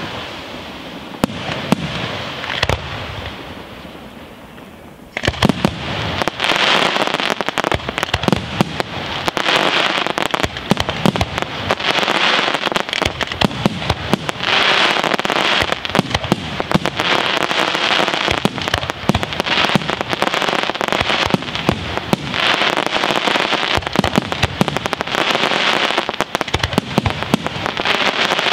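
Aerial firework shells bursting overhead with dense crackling. The first volley's crackle dies away, then about five seconds in a new barrage of bangs and crackling starts suddenly and keeps going in repeated swells.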